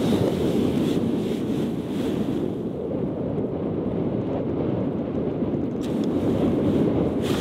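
Wind buffeting the microphone: a steady low rush with no let-up.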